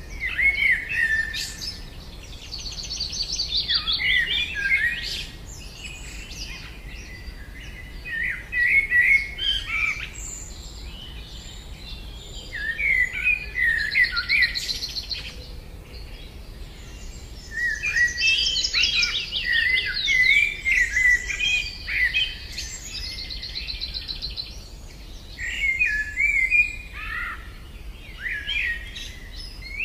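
Songbird recordings played in turn: a white wagtail's chirping calls and twitter, then a Eurasian blackcap's warbling song. The notes come in bouts of quick chirps and trills with short pauses between.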